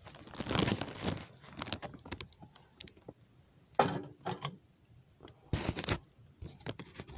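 Wood fire burning in a small tent stove, crackling and popping irregularly, with a few louder bursts of crackle about four and five and a half seconds in.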